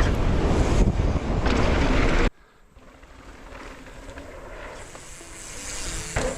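Wind buffeting the microphone, with tyre and trail noise, as a Pivot Switchblade mountain bike is ridden fast down a jump line; it cuts off suddenly a little over two seconds in. A fainter rush of noise then slowly swells toward the end.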